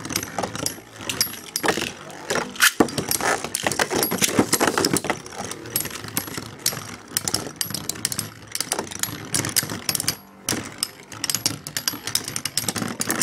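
Four Beyblade spinning tops spinning and colliding in a stadium: a continuous metallic rattle of the tops clashing and scraping against each other, with frequent sharp clicks from the hits.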